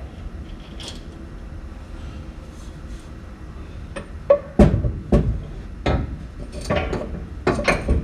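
Metal clanks and knocks from tools and car parts being handled: a quiet stretch, then a quick run of sharp knocks in the second half, some with a brief ring.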